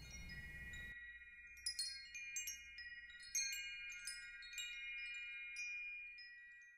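Tinkling chimes: a run of light strikes whose ringing notes overlap and hang on, dying away near the end.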